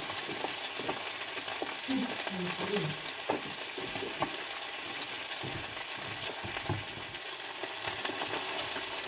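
Gilthead sea bream and vegetables frying in a hot pan: a steady sizzle with a few light clicks.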